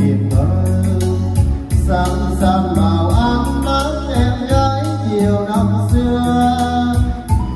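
A man singing karaoke into a handheld microphone over a backing track with heavy bass and a steady drum beat, played loud through a three-way PA rig of full-range speakers and subwoofers driven without a crossover. The voice is clearest from about two seconds in.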